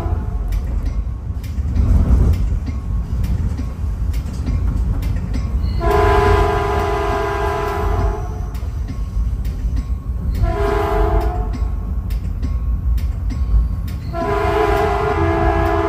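Caltrain cab car's multi-note horn sounding a long blast about six seconds in, a short one about ten seconds in, and another long one near the end, over the steady rumble and clicking of the train rolling on the rails.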